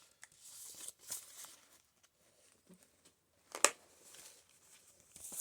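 Paper pages of a handmade junk journal rustling softly as they are handled and turned, with small ticks and one sharp snap about three and a half seconds in.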